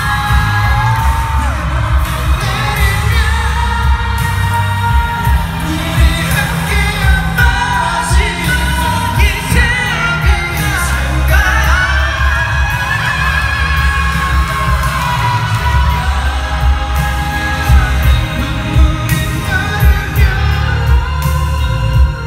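Male singer singing live into a microphone over amplified pop accompaniment, with heavy bass.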